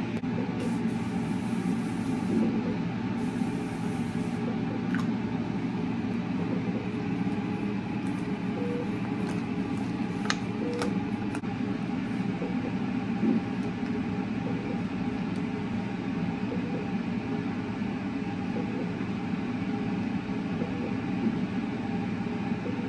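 Steady low hum and hiss of room noise, with a few faint clicks.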